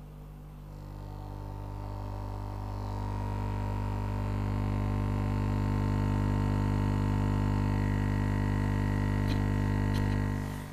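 Hailea aquarium air pump running with a steady electric hum that swells louder over the first few seconds as it is heard close up, then falls away near the end. Plainly loud for its size.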